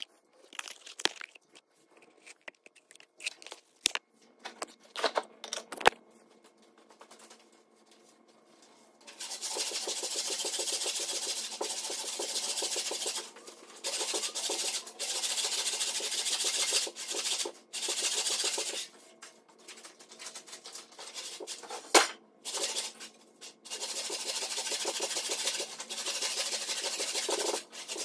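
Old hand saw ripping lengthwise down a log, a rasping run of strokes in stretches of a few seconds with short pauses, starting about a third of the way in. Before that there are a few scattered clicks and knocks, and there is one sharp knock during the sawing.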